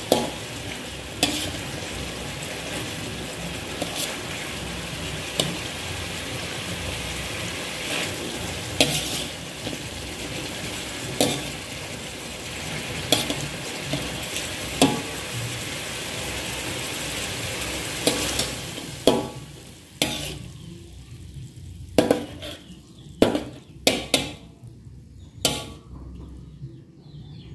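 Chicken in thick coconut-milk sauce sizzling in a metal wok, with a metal spatula clinking against the pan every second or two as pieces are lifted out. About nineteen seconds in, the sizzling drops away and the spatula knocks come faster and more sharply.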